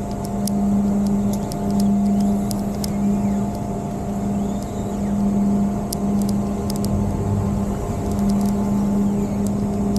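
Towboat's engine running steadily at low speed with a strong even hum that swells and eases slightly, while it pushes a 40 ft Sea Ray lashed alongside in a side tow.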